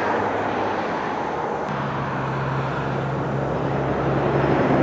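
A motor vehicle running with steady road and engine noise. A low, steady engine hum comes in about two seconds in.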